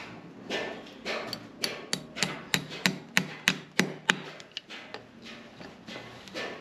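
Farrier's driving hammer striking a horseshoe nail to drive it through the shoe into the hoof wall: about ten sharp metal strikes, roughly three a second, with a few softer taps before them.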